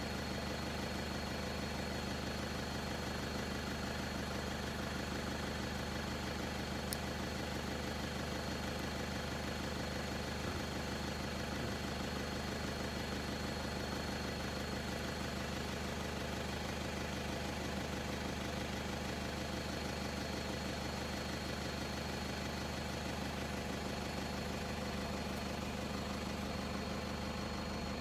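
Vehicle engine idling steadily, with a thin steady high whine above it.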